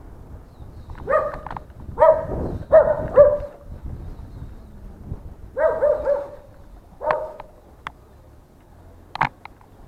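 A dog barking in short runs of two or three barks, several times over, with a couple of sharp clicks near the end.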